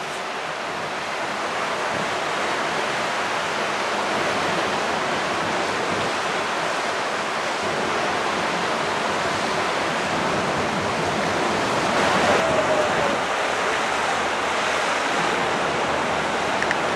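Steady rush of sea water churned along the hull and wake of the moving coastal ship MS Nordkapp, mixed with wind over the open deck.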